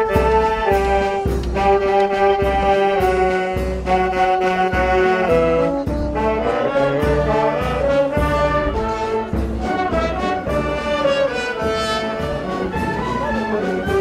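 Amateur wind band of flutes, clarinets, saxophones and brass playing a slow hymn in sustained chords, with a bass drum and cymbal keeping the beat.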